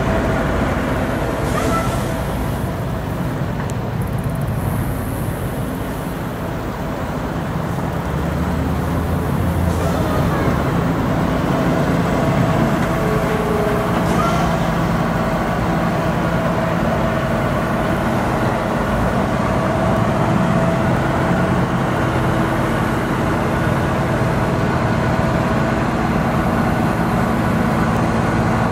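A heavy diesel truck engine idling steadily, an even rumble with a constant hum.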